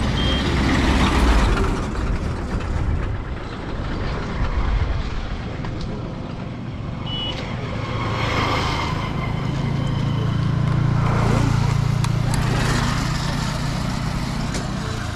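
Honda CDI-100's single-cylinder four-stroke engine running, its steady low engine note growing stronger about halfway through and holding. Two brief high beeps come through, one near the start and one midway.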